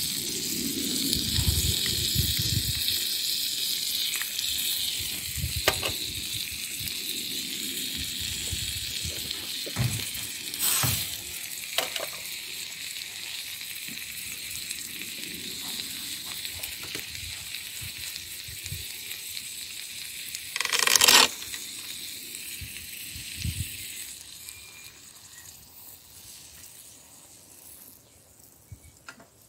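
Onions sizzling in a miniature cast-iron pan on a tiny wood-fired stove, loudest at the start and dying down. A few sharp knocks come as potato pieces go into the pan, and a louder rush about two-thirds of the way through.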